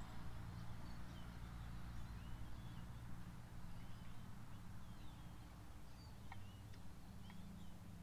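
Backyard songbirds giving many short, high chirps and call notes, scattered and overlapping, over a low steady rumble.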